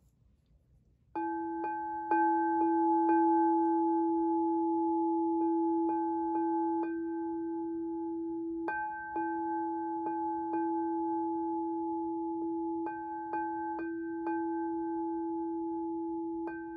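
Singing bowl music: a steady ringing bowl tone that starts about a second in, with runs of four to six short ringing strikes every few seconds.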